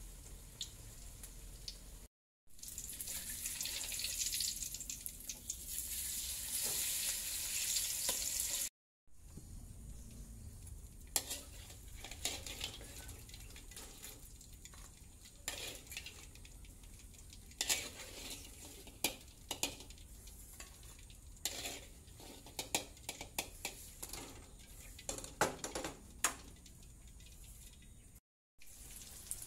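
Food sizzling as it fries in a pan, loudest in the first few seconds; after that a utensil stirring in the pan makes many sharp clinks and scrapes over a quieter sizzle.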